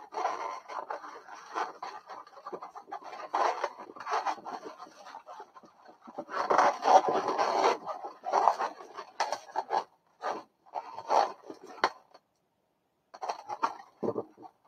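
Inflated latex modelling balloons rubbing and scraping against each other as they are pushed and woven into shape by hand. The sound comes in irregular stretches, loudest about halfway, with a brief quiet spell near the end.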